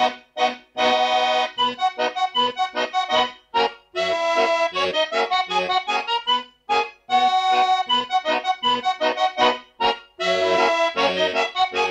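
Instrumental background music of quick, short chords, broken by brief pauses every few seconds.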